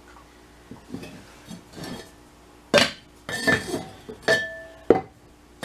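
Terracotta flower pots being picked up and stacked, clay knocking on clay. A few faint knocks, then from about halfway a run of sharp clinks, a couple of them ringing briefly.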